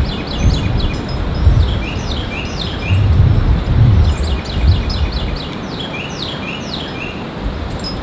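A songbird singing twice: each song is a quick run of repeated short, falling notes followed by a few longer down-slurred notes. A low rumble underlies the first song and fades out about five seconds in.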